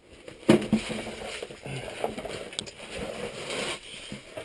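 Clothing and gear scraping and rustling against rock as someone crawls through a cave passage, with a sharp knock about half a second in.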